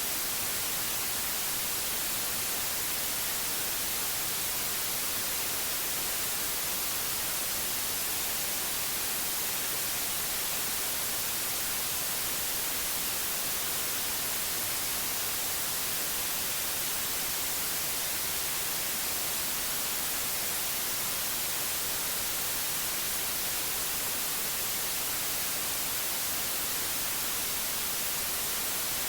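Steady white noise: an even, unbroken hiss, strongest in the high treble.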